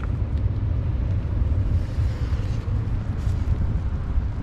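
Wind buffeting the microphone on an open beach, a steady, fluttering low rumble.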